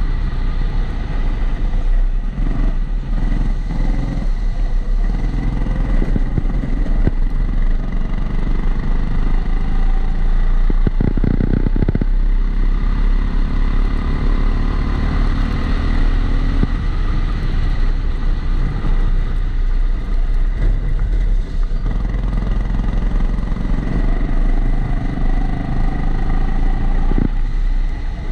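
Rental kart engine running on a lap, its note rising and falling with the throttle. The recording is muffled by the camera's waterproof housing, with a steady high tone over it.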